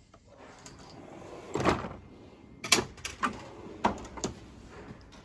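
Drawers of a Snap-on steel tool chest sliding on their runners. There is a rising slide, then a loud clunk as one shuts, followed by about five sharp metallic clicks and knocks.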